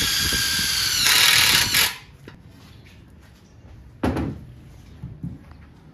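Cordless drill running with a steady whine as it drives a screw through a perforated metal strap into a wooden board. It grows louder and rougher for about a second as the screw seats, then stops about two seconds in. A single brief knock follows about four seconds in.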